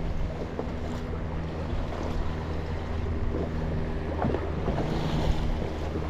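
Electric trolling motor running with a steady hum, over wind buffeting the microphone and choppy water lapping at the small plastic hull.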